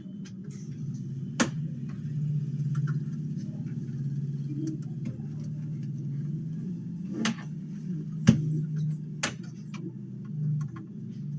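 A few sharp, scattered clicks of a laptop's plastic hard drive cover and screws being handled and fitted, over a steady low hum.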